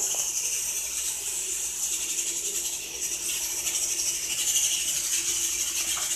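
Hand pepper grinder grinding black peppercorns, a steady gritty rattle, over a faint steady hum.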